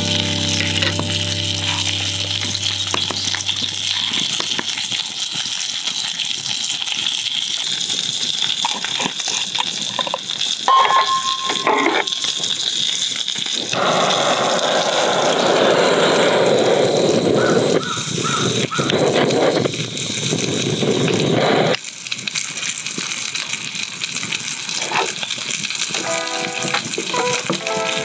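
Butane torch lighter's jet flame hissing steadily for about eight seconds, briefly interrupted once, as it lights wood chips in a glass-top cocktail smoker, with background music.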